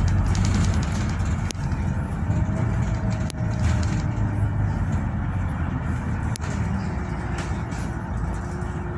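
Service bus running along the road, heard from inside the passenger cabin: a steady low engine and road rumble with a faint gliding whine. A few sharp rattles or clicks stand out, and the rumble eases slightly toward the end.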